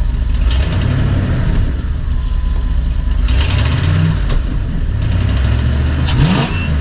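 Motorhome's fuel-injected engine revved up from idle about three times and dropping back, heard from inside the cab. It picks up with no hesitation, a sign that the newly replaced fuel pump and sending unit are delivering fuel properly.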